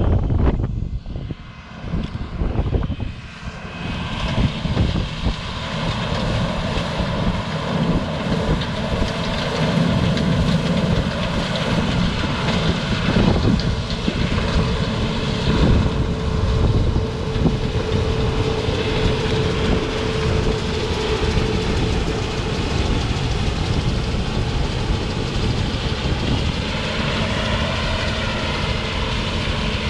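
John Deere 9500 combine running steadily while harvesting soybeans: a continuous engine and machinery drone. It is uneven and quieter for the first few seconds, then settles into a steady loud drone.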